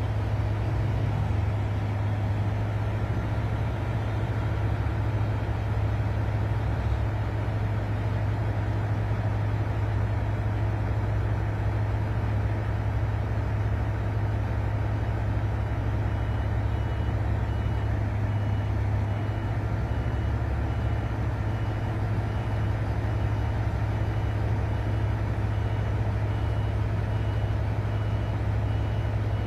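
Diesel engines of heavy mining machinery (haul trucks, excavator, bulldozer) running together as a steady low drone.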